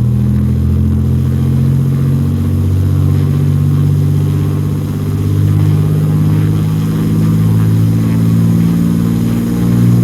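Cessna 206's six-cylinder piston engine and propeller running at takeoff power during the takeoff roll, a loud steady sound that dips slightly about halfway through.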